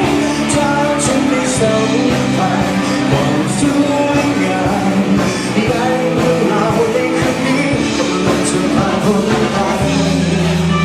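Rock song with a male singing voice over guitars, bass and drums.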